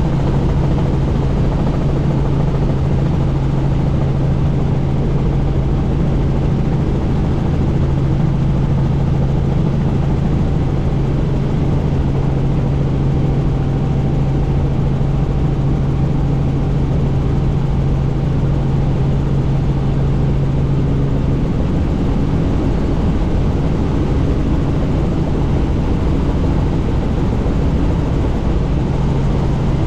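Helicopter in flight, heard from inside the open-door cabin: a steady low engine and rotor drone under heavy wind noise. The hum shifts in pitch for several seconds past the middle.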